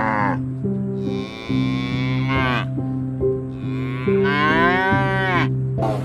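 Cattle mooing: three long moos, each dropping in pitch at its end. The first fades just after the start, the others come about one and four seconds in, over soft background music with held notes.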